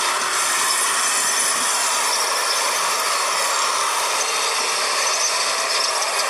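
Steady, loud mechanical rattling noise with no clear pitch or beat.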